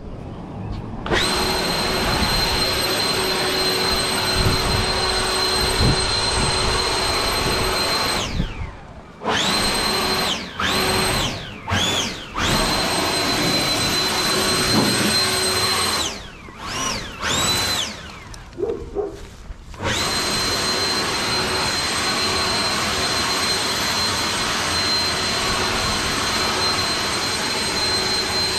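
Electric leaf blower running with a steady high whine. About eight seconds in it is released and winds down, then it is triggered in several short bursts that each spin up and die away. It runs steadily again for the last several seconds.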